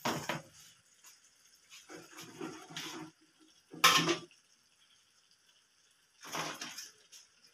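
Boiled rice being tipped and spooned onto wet chicken masala in a non-stick kadai: a few short, soft wet plops and scrapes, the loudest about four seconds in.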